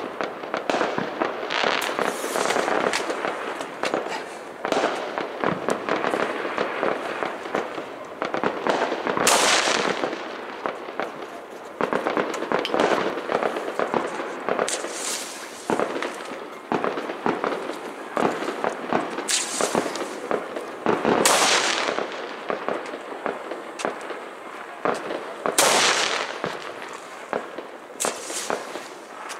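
A dense, continuous barrage of firecrackers and fireworks going off, many overlapping bangs and crackles near and far. Several louder blasts stand out every few seconds.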